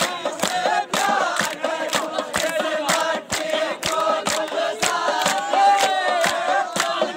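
Group of young men singing together to a steady beat of about two strokes a second, struck on a plastic barrel played as a drum, with hand clapping.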